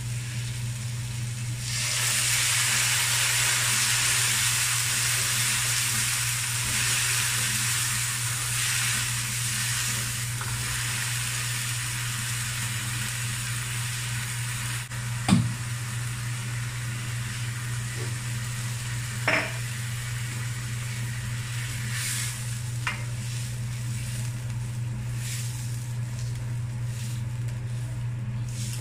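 Moringa pods frying in a nonstick wok: a loud sizzle starts about two seconds in as liquid is poured into the hot pan, then eases to a quieter steady sizzle as it cooks down. A spatula knocks sharply against the pan about halfway through and again a few seconds later, over a steady low hum.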